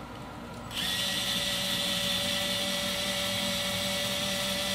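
Small cordless power driver spinning a guitar tuning peg to wind a string back up to tension, a steady motor whine that starts about a second in and holds one pitch.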